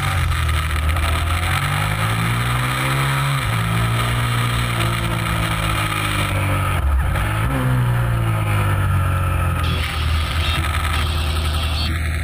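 Motorcycle engine heard from an onboard camera at speed on a race track, revving up and dropping back through gear changes and corners, with wind rushing over the microphone. The pitch climbs and falls sharply about three and a half seconds in, and again about seven seconds in.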